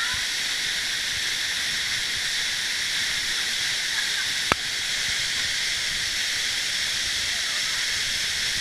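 Waterfall close by, water pouring steadily into a pool: an even, high rushing noise, with one sharp click about four and a half seconds in.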